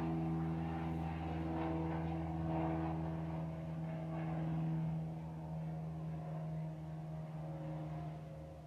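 Aircraft engine droning steadily as it circles outside, growing fainter over the last few seconds.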